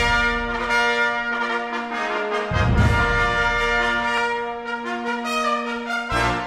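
Brass music: held chords with low bass notes coming in about two and a half seconds in and again near the end.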